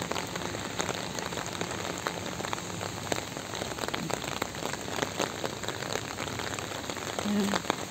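Steady rain falling, an even hiss with many sharp drop hits ticking close by.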